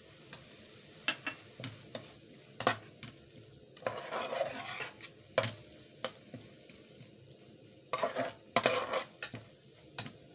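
Spatula stirring vegetables frying in a metal pan: repeated clinks and longer scrapes against the pan over a faint sizzle.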